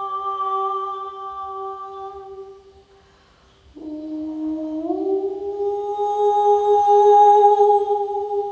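A voice humming long held notes. One note fades out about three seconds in; after a short pause a new one starts low, slides up to pitch and is held, swelling louder.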